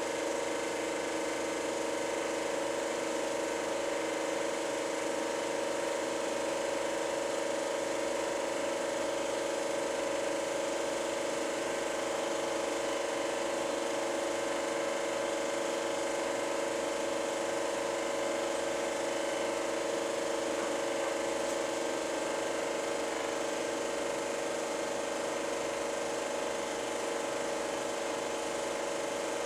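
Super 8 film projector running: a steady mechanical whir made of several held tones over a hiss.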